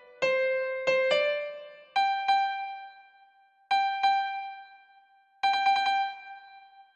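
Karaoke guide melody played one note at a time on a piano-like keyboard tone, each note struck and left to die away. A few notes come in a slow line with pauses, then a quick run of repeated notes on one pitch about five and a half seconds in.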